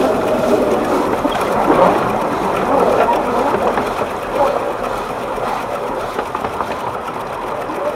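12¼-inch gauge steam locomotive running with its train, heard from the footplate: a steady, loud mix of exhaust, running gear and wheels on rail, with wavering tones rising and falling through it.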